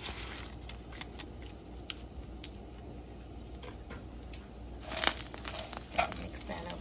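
McCormick chili seasoning packet crinkling as it is shaken out over a frying pan of browned ground beef, with scattered small ticks and rustles. The crinkling is louder about five and six seconds in.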